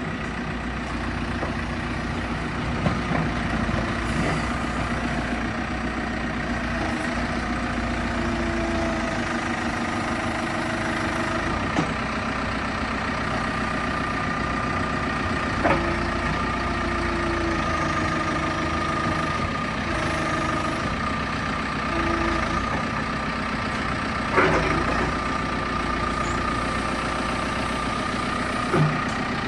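Heavy diesel engine idling steadily, with a few short sharp knocks scattered through.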